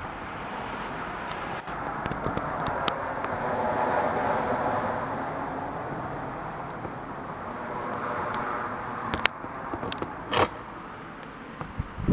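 A vehicle passing by: a rushing noise that builds to a peak about four seconds in and fades, with a second smaller swell near eight seconds. A few sharp clicks near the end.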